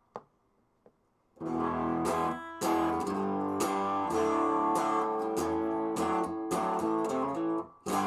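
Electric guitar played through the Interstellar side of a homemade Hoover Hog overdrive pedal with its gain turned down. Chords come in about a second and a half in and ring on, in a thick, slightly dark, mildly overdriven tone.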